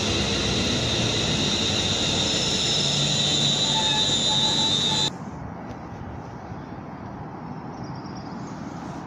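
London Northwestern Railway Class 350 Desiro electric multiple unit moving along the platform, with a steady high whine from its traction equipment over the rumble of the wheels on the rails. The sound cuts off abruptly about five seconds in, leaving quieter station background.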